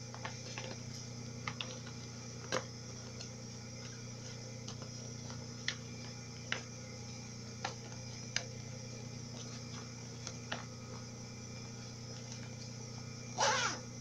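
Clear vinyl pouch crinkling and ticking as it is handled and turned right side out: scattered sharp clicks, with a longer, louder crinkle near the end.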